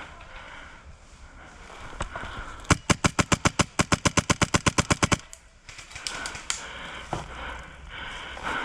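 Airsoft gun firing a rapid, even string of about twenty shots, roughly eight or nine a second, over about two and a half seconds.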